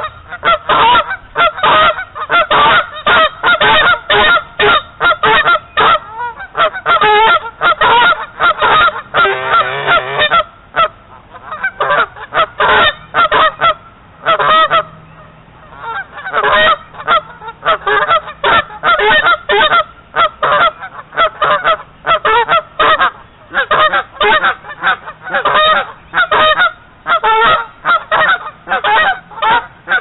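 A pair of Canada geese honking loudly and rapidly at close range, a territorial display, with a short lull near the middle.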